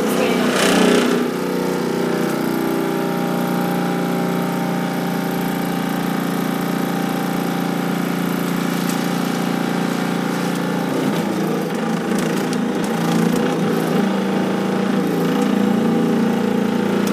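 Hypervibe whole body vibration machine's 900-watt motor running at its top setting of 28 hertz: a steady mechanical hum and buzz. About eleven seconds in, it turns rougher and slightly louder.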